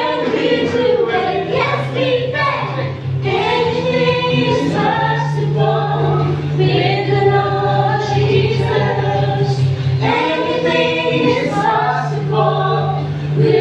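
A Christian worship song with group singing over a steady bass line that moves between two low notes every second or two.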